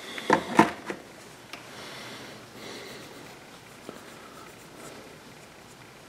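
A quick clatter of knocks and clicks about half a second in as a plastic bottle of alcohol is set down on the workbench. Then comes a faint scratchy rubbing: a cotton-tipped applicator scrubbing the rear-sight dovetail of a pistol slide to degrease it.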